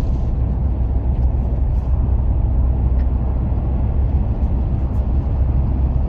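Steady low rumble of a car's road and engine noise heard inside the cabin while driving through a motorway tunnel.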